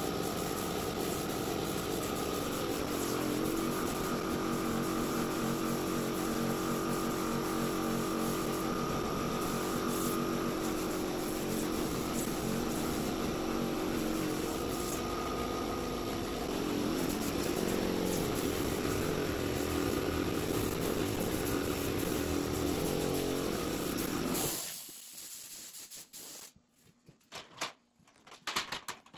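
Shop air compressor running steadily while it supplies a paint spray gun, then cutting out abruptly about three-quarters of the way through, as a compressor does when it reaches its set pressure.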